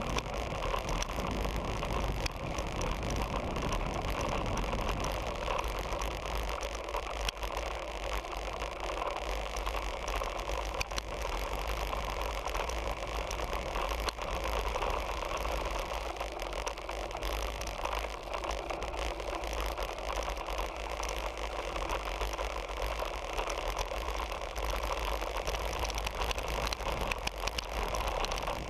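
Road bike riding along a tarmac lane: a steady rush of wind on the handlebar-mounted action camera's microphone with a deep rumble, over light rattling and a few clicks from the bike.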